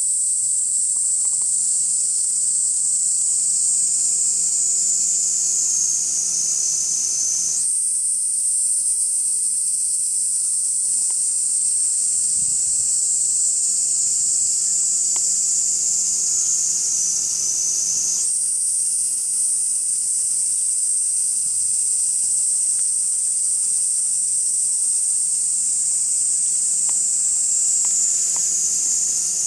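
Cicada song: a high-pitched buzz that slowly sinks in pitch over about ten seconds, then jumps back up and starts again, twice.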